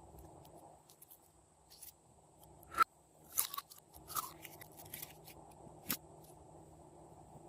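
Glossy slime being worked by hand, giving a handful of sharp crackly clicks and pops, the loudest a little under three seconds in.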